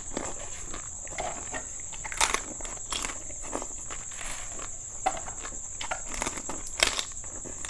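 Crisp golgappa (pani puri) shells cracking and crunching as they are bitten and chewed, with short sharp crackles a few times, the loudest about two seconds and seven seconds in. A thin steady high whine runs underneath.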